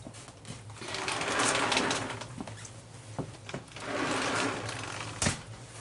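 Plastic cookie packaging being rustled and handled in two spells, each about a second and a half long, with a few sharp clicks between them and a louder click near the end, over a steady low hum.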